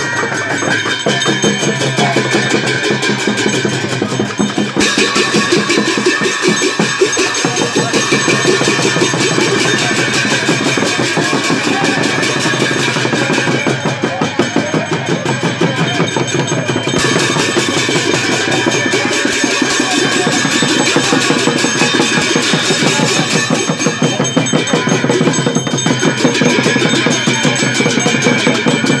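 Live Newar procession music: a double-headed dhime drum beaten with a stick, together with clashing hand cymbals, played loud and without a break.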